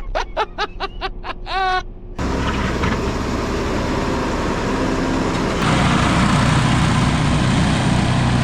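An engine cranking in the cold, with rapid, even, chirping strokes for about two seconds. It catches and runs loudly, and it revs up higher about two thirds of the way through.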